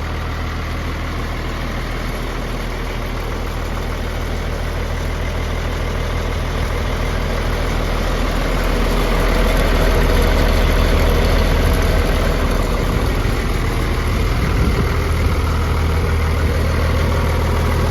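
Woodsman 18X wood chipper's 185 hp John Deere diesel engine running steadily with an even low hum, growing somewhat louder over the first half.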